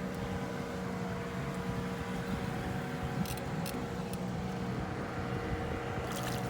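A steady machine hum holding several constant tones over an even background rush, with a few faint light clicks a little past the middle.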